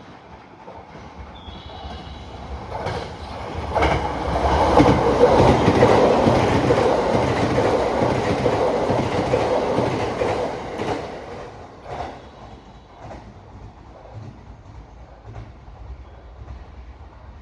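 A train running through the station, its wheels clicking over the rail joints. It builds up over a few seconds, is loud for about six seconds, then fades away.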